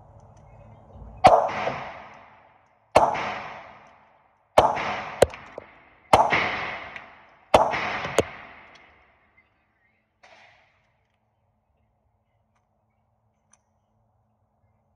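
Seven shots from a Polymer80-framed Glock-pattern pistol, fired at an uneven pace over about seven seconds, with two pairs close together. Each shot is followed by a ringing tail off the walls of an indoor range booth.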